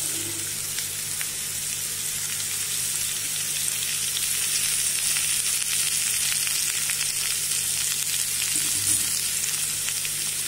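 Freshly added cubes of raw potato frying in hot oil in a kadai: a steady sizzle with scattered faint crackles.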